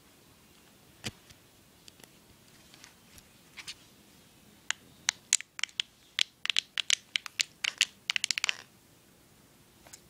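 Sharp clicks and scratchy taps from a small plastic MP3 player being handled: one click about a second in, then a quick run of several clicks a second in the second half.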